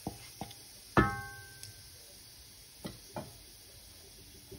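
Spatula knocking against a non-stick pan about five times, the loudest knock about a second in ringing briefly, over the faint sizzle of whole spices and chili flakes frying in oil.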